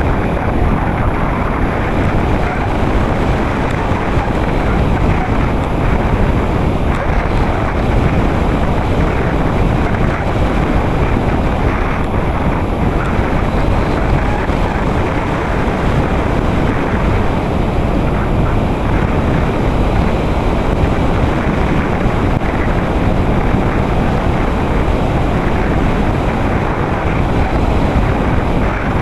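Steady, loud rush of wind over an RC glider's onboard camera microphone as the model flies through the air.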